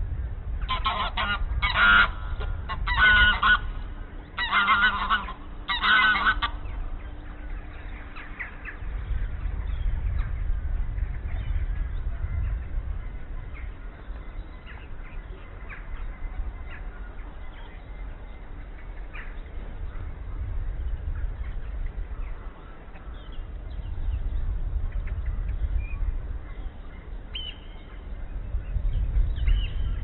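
A large bird calls five times, loud and harsh, about a second apart in the first six seconds. After that only a low, steady rumble remains, with a few faint, brief bird calls.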